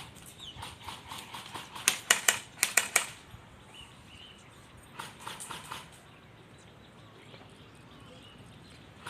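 Airsoft BB guns firing in rapid strings of sharp shots, several a second, loudest about two seconds in, with a shorter string about five seconds in.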